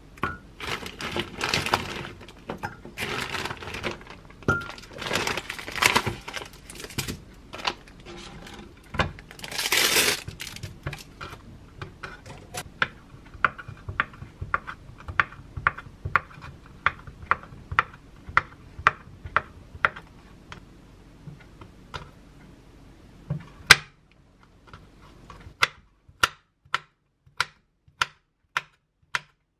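Plastic packaging crinkling and rustling, then a kitchen knife chopping imitation crab stick and then pickled radish on a wooden cutting board in steady strokes, about two a second, with a short pause between the two.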